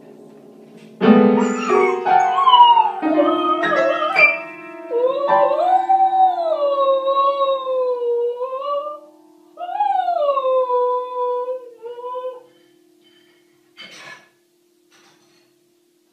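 A dog's front paws press the keys of an upright piano, sounding several clusters of notes in the first few seconds, then the dog howls along in two long, wavering howls that rise and fall over a lingering piano note. A short knock near the end.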